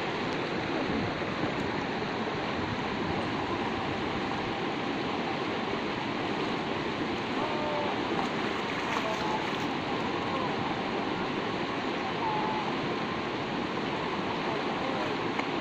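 Shallow mountain river rushing steadily over rocks and through small rapids.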